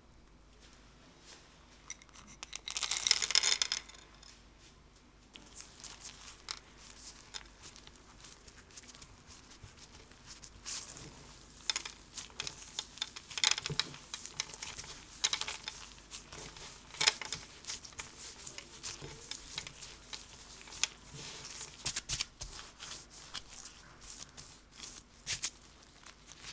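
Gloved hands kneading and squeezing sablé cookie dough with cocoa powder and milk chocolate chips on a wooden board: irregular soft squishing, crumbling and crinkling sounds. About three seconds in there is a louder rustling burst lasting a second or so.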